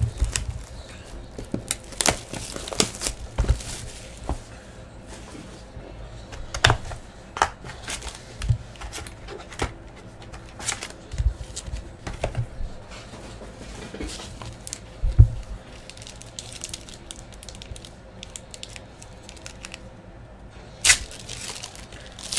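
Foil trading-card pack wrappers being torn open and crinkled, and the cards handled, in irregular rustles and sharp crackles.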